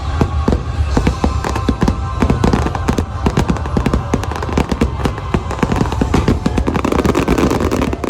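Fireworks going off in a rapid, dense barrage, many bangs a second over a deep rumble, with the show's music playing underneath. It stops abruptly at the end.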